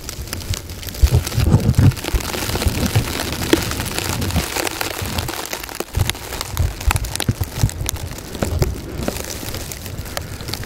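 Blizzard weather: a steady hiss like rain, with scattered sharp ticks and irregular low thumps of wind gusting on the microphone.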